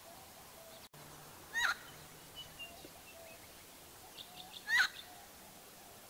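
Helmeted friarbird calling: two loud, harsh, short calls about three seconds apart, with softer notes in between.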